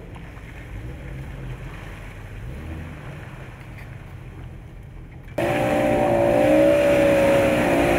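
Four-wheel-drive vehicle's engine: a low distant rumble, then about five seconds in a much louder, close engine note starts abruptly and holds at high revs under load.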